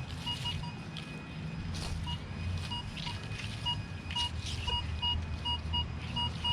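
Minelab Vanquish 440 metal detector beeping in short, repeated mid-pitched tones as the coil sweeps back and forth over a buried target, the tone of a non-iron target such as a coin. A low rumble runs underneath.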